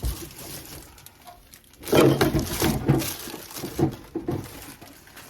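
Plastic refrigerator bin and containers being handled: a run of knocks, rattles and scrapes starting about two seconds in.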